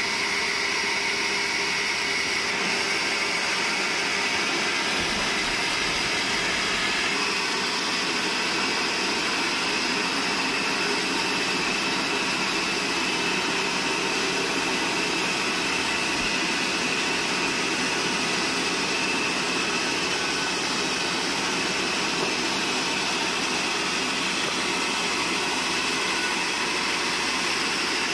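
Large vertical band sawmill running: a steady mechanical noise with a faint high whine, shifting slightly about seven seconds in.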